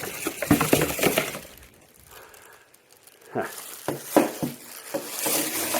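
Unboxing handling of a floodlight and its packaging: quick crinkling and plastic clicks, a short quiet pause, then a few sharp knocks and clicks as the unit is turned over.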